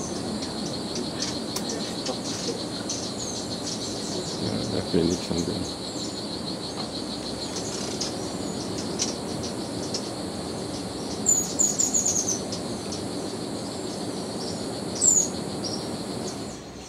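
Tropical rainforest ambience: a steady, pulsing insect chorus, with high bird chirps over it. The loudest bird calls are a quick run of descending chirps about 11 seconds in and one more chirp about 15 seconds in.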